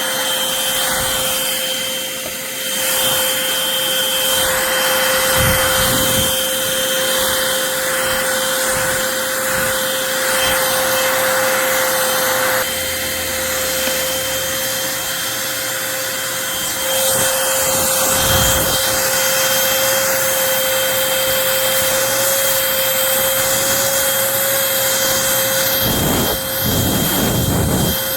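Eureka corded stick vacuum running with a steady motor whine over its rushing suction noise, pushed across a floor, with a few dull knocks now and then.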